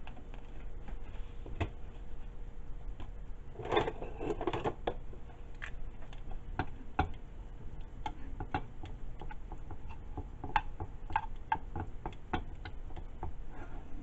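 Raw chicken pieces cooking in hot oil in a frying pan: sparse, irregular crackling pops, with a brief scrape of a utensil moving the chicken about four seconds in.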